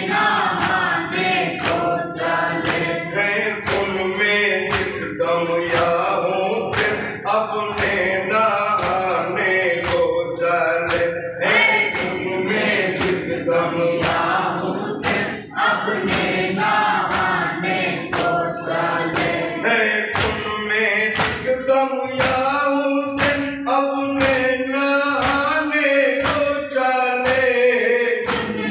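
Men chanting a Muharram lament together, led on a microphone. It is kept in time by matam, hands beating on chests in a steady rhythm of about two strokes a second.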